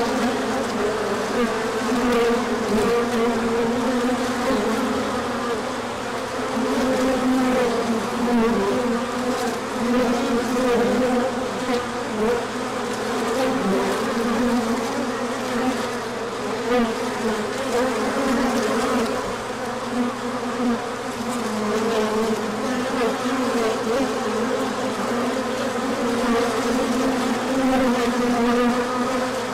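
Honey bees buzzing in a dense, steady hum whose pitch wavers slightly.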